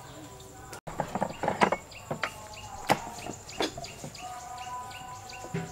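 Cleavers cutting raw pork belly on wooden chopping blocks: an irregular run of knocks as the blades strike the wood. A bird chirps over and over in the background, a couple of short chirps a second.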